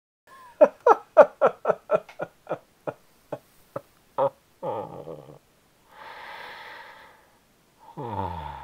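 A man laughing: about a dozen quick bursts that slow and fade. Then a breathy exhale and a long sigh falling in pitch near the end.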